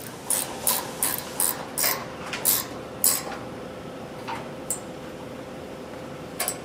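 A wrench tightening the nut on the hub of an agitator's cast drive gear: a quick run of sharp metallic clicks, about two or three a second, for the first three seconds. After that come a few weaker clicks and a double click near the end, over a faint steady hum.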